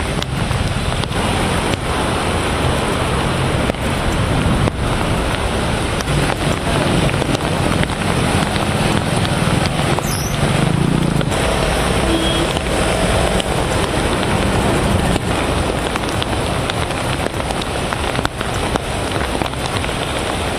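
Traffic on a flooded street in the rain: car and motorbike engines running, with tyres splashing through standing floodwater over steady rain noise.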